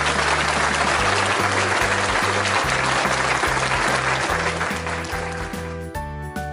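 Background music with a repeating bass line, overlaid by an applause sound effect of many hands clapping that dies away about six seconds in.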